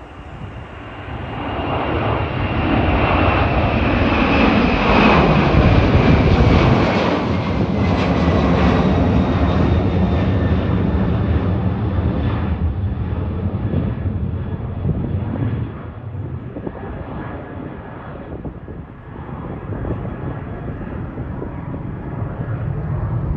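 Twin-engine jet airliner climbing out at takeoff power. The engine noise swells to a peak within the first several seconds, with a fan whine sliding down in pitch as it passes, then eases into a lower, rougher rumble as the jet climbs away.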